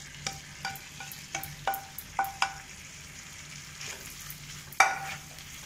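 Spatula knocking against non-stick pans as fried okra is scraped from one pan into a kadai and stirred into the onion masala: a run of sharp ringing taps over the first couple of seconds and one louder knock near the end, over a faint sizzle.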